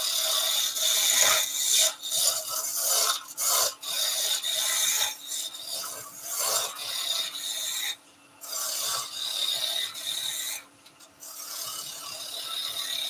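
Skew chisel shaving a spinning wooden cylinder on a wood lathe: a dry, hissing cut that comes in strokes as the blade is worked along the work to bring it down to diameter, with short breaks about 8 and 11 seconds in. The lathe runs with a faint steady hum underneath.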